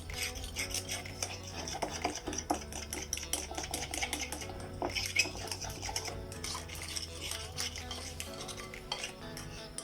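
A utensil stirring cornstarch, sugar and eggs in a bowl, with quick irregular clinks and scrapes against the bowl, to dissolve the cornstarch without lumps. Soft background music underneath.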